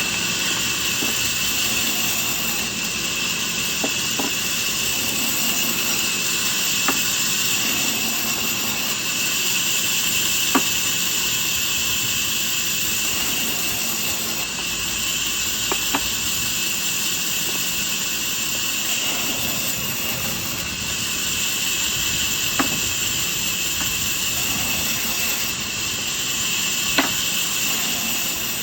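Woodworking machine running steadily with a high hissing whine, with a few sharp clicks now and then.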